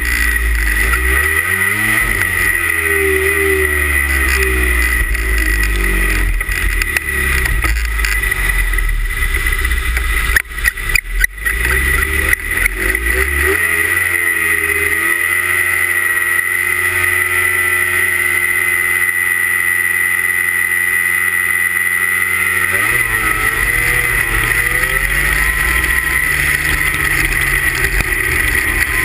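Two-stroke 340 cc racing snowmobile engines revving unevenly at the start line. About halfway through, one engine is held at a steady high pitch at full throttle for several seconds, then drops suddenly about three quarters of the way through as the throttle comes off.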